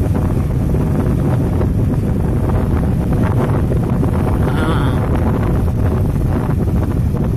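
Wind buffeting the phone's microphone from a moving vehicle: a loud, steady, low rumble of wind and road noise.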